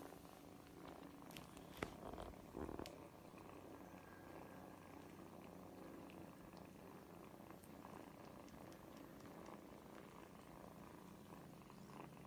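Kitten purring faintly and steadily, with a click and a brief rustle about two seconds in.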